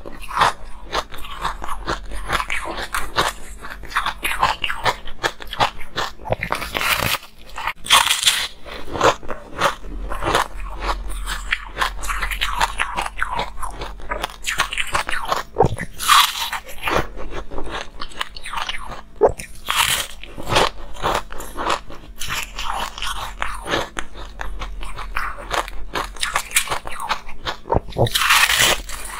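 Close-miked biting and chewing of foamy, rainbow-dyed ice: a dense run of crisp crunches, with louder bites every few seconds.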